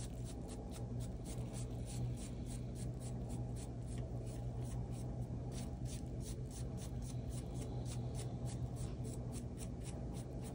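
Small fan paintbrush dabbing and scratching in quick, even strokes, about three or four soft ticks a second.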